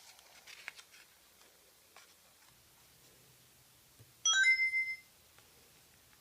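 A short electronic jingle of a few clear, high tones about four seconds in, played through a small speaker; before it, faint ticks die away.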